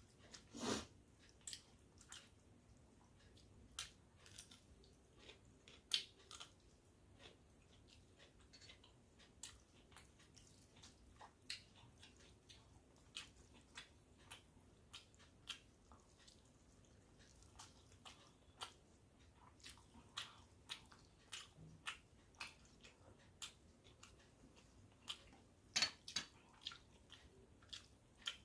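Close-up eating sounds of a person chewing wet panta bhat (water rice), with irregular sharp mouth clicks and smacks; the loudest come about a second in, around six seconds in, and near the end.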